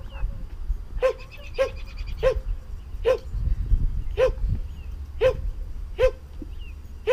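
A dog barking repeatedly, about eight short high-pitched barks roughly a second apart, with wind rumbling on the microphone underneath.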